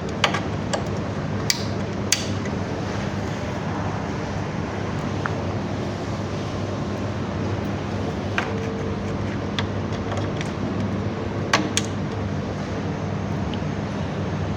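Steady background hum with scattered sharp clicks and taps as battery wiring connectors and terminals are handled: a few clicks in the first two seconds, another around eight seconds in, and a pair close together near twelve seconds in.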